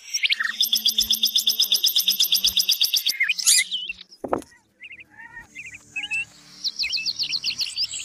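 Songbird song, likely a common nightingale: a fast run of repeated high notes for about three seconds, then a few short whistles and one long falling whistle, and a new rapid trill near the end.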